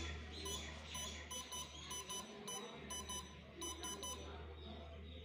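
Total station keypad beeping at each key press as a job name is typed in letter by letter: a dozen or so short, high electronic beeps of one fixed pitch, many coming in quick pairs. A steady low hum runs underneath.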